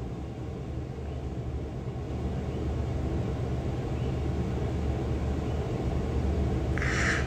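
A steady low rumble, with a brief breathy hiss near the end.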